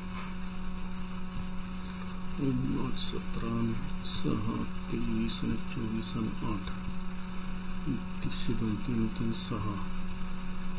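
Steady electrical mains hum on the headset microphone's line, with quiet muttered speech in short stretches over it.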